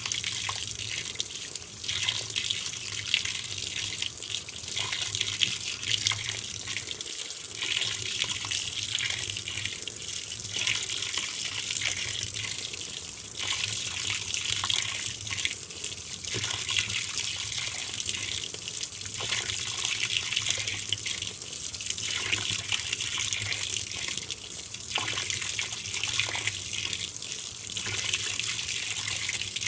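Water pouring steadily into the tub of a 2012 LG top-load washer as it fills on the delicates cycle, with a low hum beneath the rush of water.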